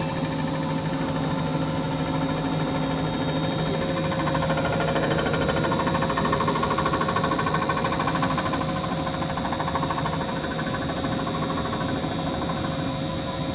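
Engine-machining equipment running steadily while it works a Nissan GT-R VR38 V6 engine block: a continuous mechanical hum under a high, steady whine, swelling slightly around the middle.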